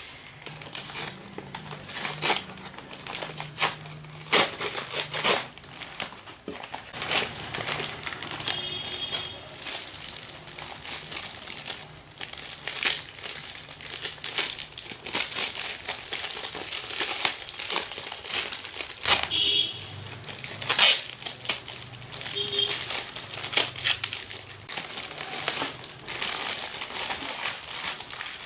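Packaging crinkling and rustling as it is handled and opened, with many irregular sharp crackles throughout.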